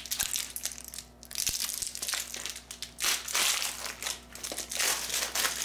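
Packaging crinkling and crackling as new wheelchair armrest pads are handled, in irregular bursts that grow louder and denser about three seconds in.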